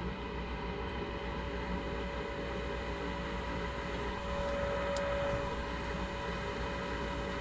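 Goodman furnace's draft inducer motor running with a steady hum and rush of air, its pressure switch held closed. There is one faint tick about five seconds in.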